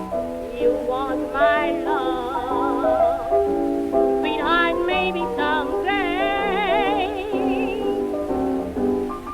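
Background music: an old jazz-blues recording, a melody line with a wide, wavering vibrato over piano chords.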